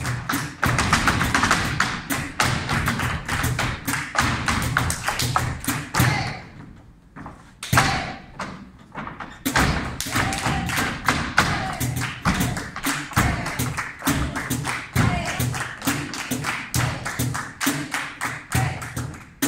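Flamenco zapateado footwork in bulerías rhythm: rapid shoe strikes on a wooden floor, with palmas (hand-clapping) alongside. The stamping stops for about three seconds some six seconds in, broken by a single loud strike, then picks up again.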